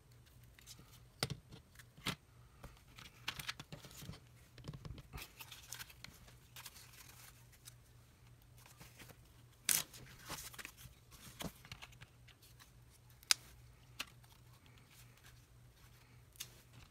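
Plastic parts bags and small items being handled on a workbench: crinkling rustles broken by scattered sharp clicks and taps, over a faint steady low hum.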